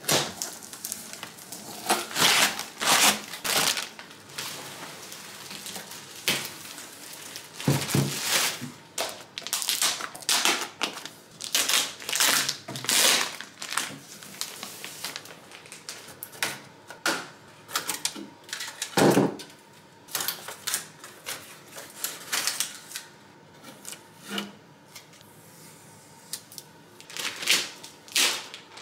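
Unpacking noises: cardboard box parts and protective plastic film and tape being handled and peeled off a new 3D printer's glass panels, giving irregular rustling, crinkling and scraping. Two heavier thumps come about 8 and 19 seconds in.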